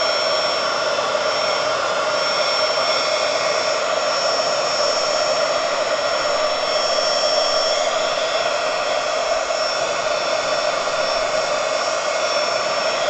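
Craft heat gun running steadily, a continuous blowing rush with a steady hum and a high whine, melting thick spots of wax off a waxed canvas.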